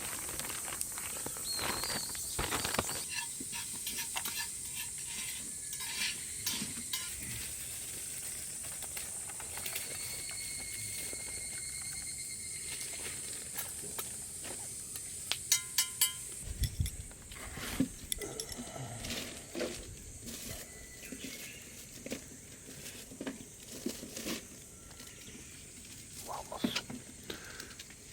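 Food sizzling in a pan over a campfire: a steady hiss with scattered clicks and clinks of cookware, and a quick run of clicks about fifteen seconds in.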